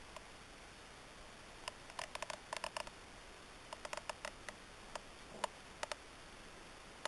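Quick runs of sharp, light clicks over a steady faint hiss: two bursts of rapid clicking a couple of seconds in and around four seconds in, then a few single clicks.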